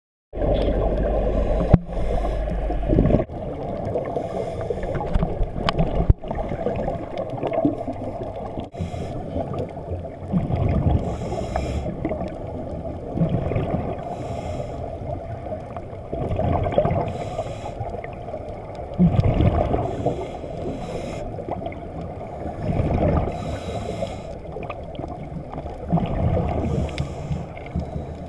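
Scuba diver's breathing heard underwater through a waterproof camera housing: exhaled bubble streams gurgle in low rumbling surges every few seconds over a steady muffled underwater wash.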